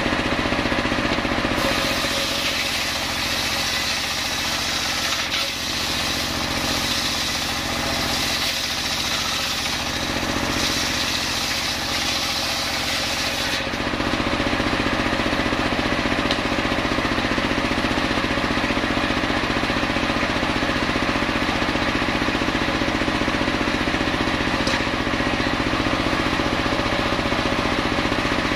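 Engine-driven homemade circular saw bench ripping coconut wood: the blade's cutting noise rides over the engine from about two seconds in until about thirteen seconds, when the cut ends. After that the engine and blade run on steadily without load.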